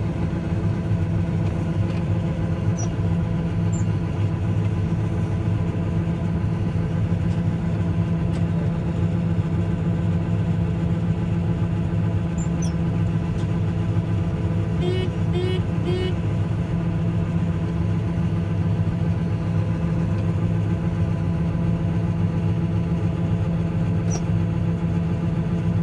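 Combine harvester running steadily under load with a constant engine hum. A quick set of three short, high chirps comes about fifteen seconds in.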